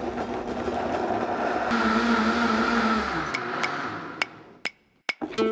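Vitamix A3500 blender running, puréeing tomatoes, jalapeños, onion and water into a smooth salsa: a steady whirring that picks up a higher whine about two seconds in, then winds down as the motor stops near the end.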